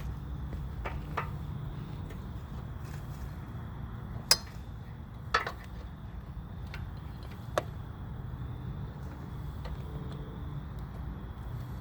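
Scattered sharp metal clicks and knocks, the loudest three about four, five and a half and seven and a half seconds in, as a front engine mount is worked into a small motorcycle frame, over a steady low hum.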